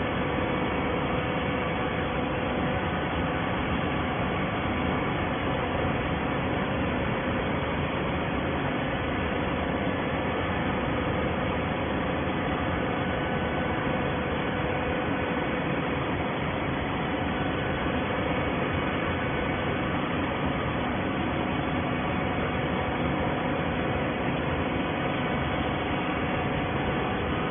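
Automatic-binding PET bottle baler running: a steady mechanical hum and hiss with a few faint held tones, unchanging throughout.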